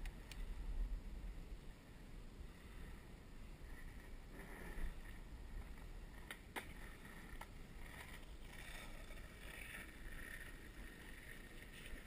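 Muffled riding noise from a bicycle rolling on pavement: low wind rumble on the microphone and a steady road hiss, with a couple of sharp clicks about six and a half seconds in.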